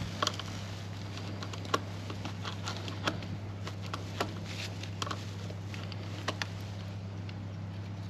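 Scattered small clicks and taps of hands handling the plastic bike computer mount on a road bike's handlebars, over a steady low hum.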